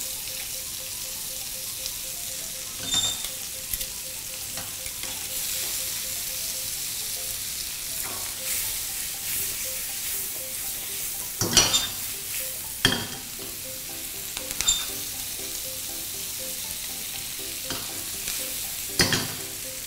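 Butter and vegetables sizzling in a frying pan with a salmon fillet, a steady high hiss. A few sharp clanks of the pan and utensil break through as the vegetables are stirred and tossed, loudest about 11 to 13 seconds in and again near the end.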